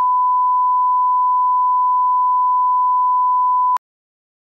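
Broadcast line-up tone: a steady pure 1 kHz reference tone played with colour bars to set audio levels at the head of a TV programme, cutting off sharply near the end.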